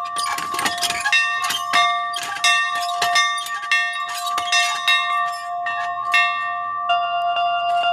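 A farm dinner bell in a yoke on a post, swung by its rope, clanging repeatedly at a bit under two strokes a second, each stroke ringing on over the next. The strokes stop about six and a half seconds in.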